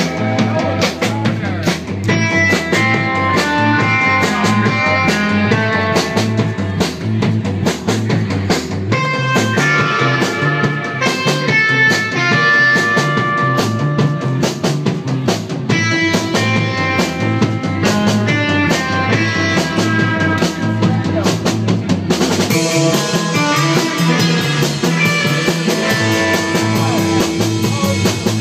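Live rock band playing: a drum kit keeps a steady beat under guitar lines, and heavier cymbals come in about twenty seconds in.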